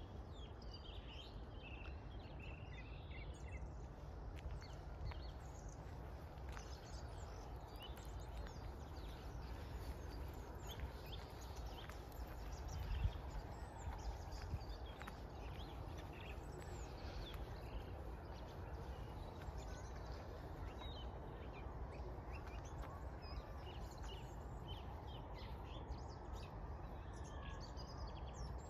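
Scattered small-bird calls and chirps over a steady low outdoor rumble, with one brief thump about halfway through.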